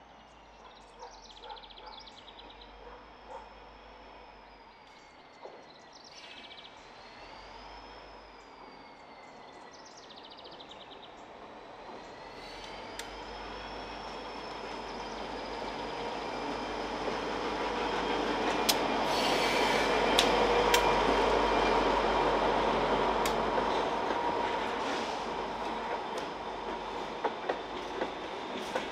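Diesel-hauled freight train approaching slowly and passing close, growing louder to its loudest about two-thirds of the way through as the locomotive goes by. A faint high squeal that slowly wavers in pitch is heard before the train comes into view, and the freight cars' wheels clack over the rail joints near the end.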